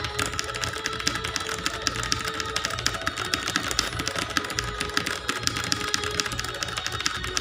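Fast, continuous typing on a clicky computer keyboard, many sharp keystrokes a second, over a steady background hum.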